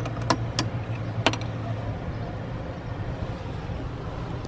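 Electric golf cart running with a steady low hum, with a few light clicks and rattles in the first second or so.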